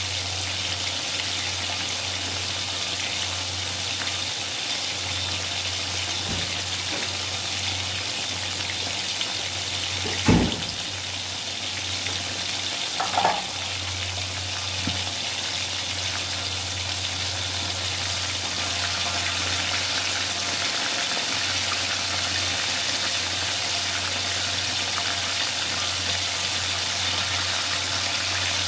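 Battered chicken pieces deep-frying in hot oil in a wok: a steady sizzling hiss. A sharp knock sounds about ten seconds in, and a weaker one about three seconds later.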